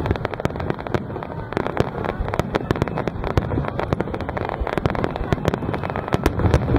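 Aerial firework shells bursting in a rapid barrage: many sharp bangs a second at irregular spacing over a continuous low rumble.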